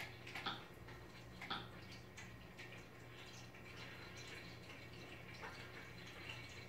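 Faint, irregular watery plops or drips a second or more apart, over a steady low hum.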